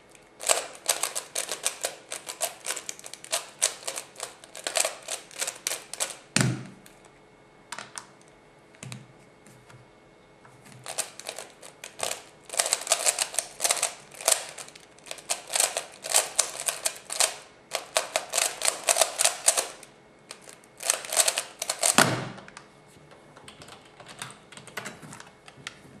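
F-II 3x3 speedcube being turned at speed, a fast dense run of plastic clicking and clacking, in two long spells with a pause between. Each spell ends with a single dull thud, about six seconds in and again near twenty-two seconds.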